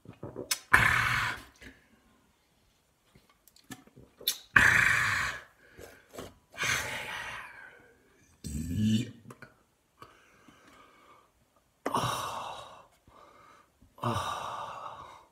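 A man gasping and sighing loudly, about six heavy open-mouthed exhalations of a second or so each, breathless after downing a can of beer in one go. A lower, throaty grunt comes about nine seconds in.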